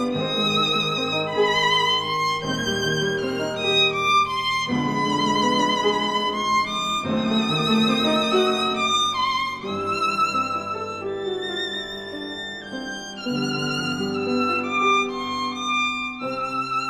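Background music score: a violin playing a melody with a wavering vibrato, over sustained lower accompanying notes.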